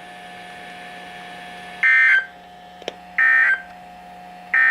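Three short, buzzy data bursts of the EAS/SAME end-of-message code from a NOAA Weather Radio broadcast, each about a third of a second long and a little over a second apart, marking the end of the Required Weekly Test. A faint steady tone lies underneath.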